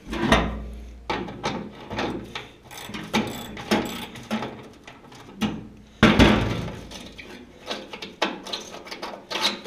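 Hand socket ratchet clicking while a rusted inner-fender bolt is backed out, with metal tools knocking and clattering on rusty sheet metal. The clicks come irregularly, with two heavier knocks, one about a quarter-second in and one about six seconds in.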